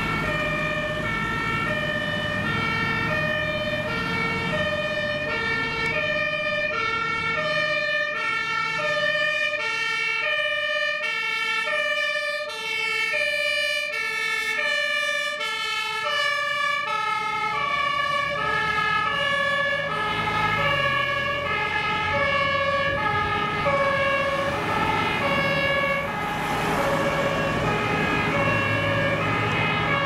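Two-tone sirens (Martinshorn) of German fire engines, alternating steadily between a low and a high note, with two sirens overlapping out of step, over the trucks' engines.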